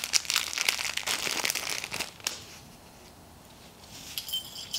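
Packaging crinkling and crackling as a small item is unwrapped by hand, stopping a little over two seconds in.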